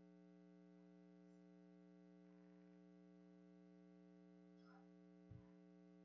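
Near silence with a steady electrical mains hum from the sound system; a brief faint thump about five seconds in.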